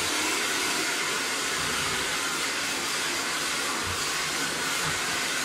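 Hand-held hair dryer running steadily, blowing into a dog's thick coat.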